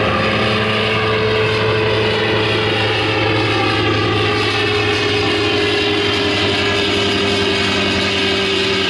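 Propeller aircraft's piston engine running in a steady drone, its pitch sinking slightly.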